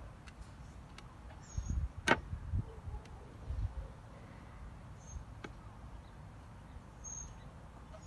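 Quiet outdoor ambience: a few short, high chirps of a small bird, low thuds of handling noise on the phone's microphone, and one sharp click about two seconds in.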